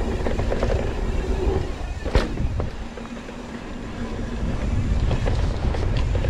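Mountain bike rolling down a dirt trail: tyre rumble over the ground, rattling from the bike and wind on the microphone, with one sharp clunk about two seconds in.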